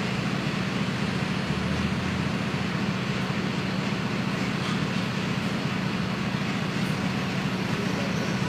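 Mercedes-Benz OF-1721 BlueTec 5 bus's diesel engine running at a steady speed, a constant low hum over an even noise, with no revving.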